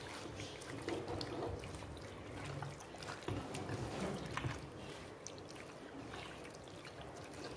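Hands squishing raw boneless chicken pieces as they are kneaded with ginger-garlic paste in a clay pot: irregular wet squelching with small clicks.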